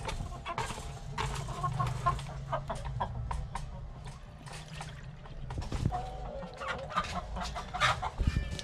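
Chickens clucking, a string of short calls repeated throughout.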